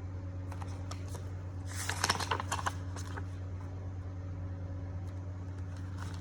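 A picture book being handled: short crackly paper rustles and clicks, bunched together about two seconds in, with a few scattered ticks after. A steady low hum runs underneath.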